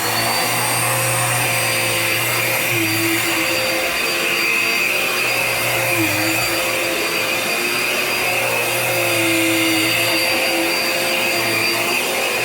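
Dirt Devil Power Max upright vacuum cleaner running steadily at full speed just after being switched on, with a high whine over the motor noise.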